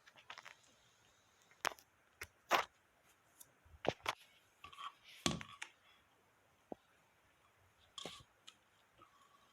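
AMF Amflite II bowling pin being knocked and handled: a string of sharp knocks and clicks at uneven intervals, the loudest about two and a half seconds in, with a duller thud a little after five seconds.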